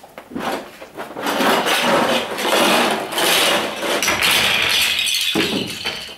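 A boxful of small toy blocks tipped out, clattering and rattling onto a hollow stage platform and the floor for several seconds before dying away near the end.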